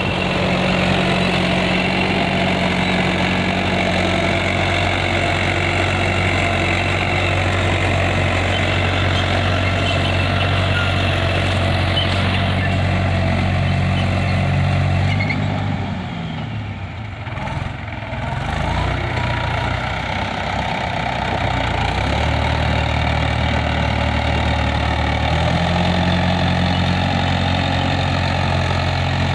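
Tractor engine running steadily while pulling a zero-till seed drill. Just past halfway the engine note sags for a few seconds, then comes back up in steps.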